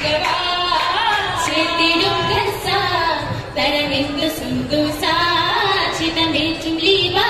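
A group of women singing a Mappila song for an Oppana dance, with hand claps keeping the beat.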